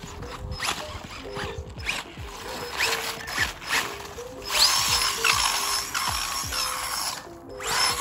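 Brushless RC truck's electric motor whining up in short rising bursts as it drives through slush on wet concrete, with a louder spell of tyre hiss and motor whine from about four and a half seconds in. Background music plays under it.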